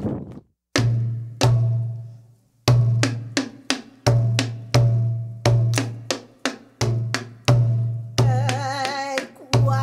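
Hawaiian hula drum beaten in a steady rhythm: deep strokes about three every two seconds, with lighter sharp taps between them. A chanting voice with a wavering tone comes in about eight seconds in.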